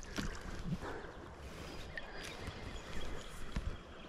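Faint splashing and sloshing of river water as a small hooked rock bass is brought in, with a few light clicks and a low knock about three and a half seconds in.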